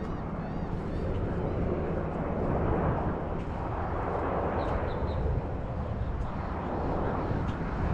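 Steady wind and road noise on a handlebar-mounted camera while cycling: an even rushing noise, heaviest in the low end, with a few faint high chirps about halfway through.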